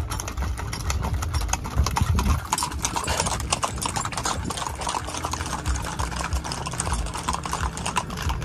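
Many horses' and mules' hooves clip-clopping on an asphalt road as a group of riders walks by, a dense, overlapping patter of hoof strikes.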